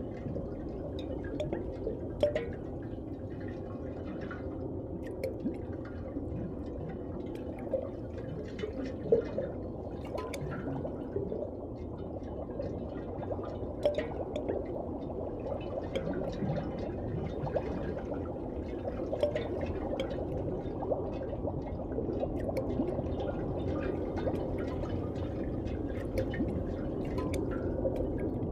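Cartoon underwater ambience sound effect: a steady, muffled watery wash with many small pops and drips scattered throughout.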